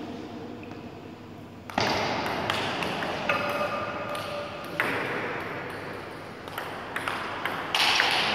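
Table tennis rally: the ball clicking sharply off rubber paddles and bouncing on the table, a series of hits spaced about half a second to a second and a half apart, each followed by an echo off the hall.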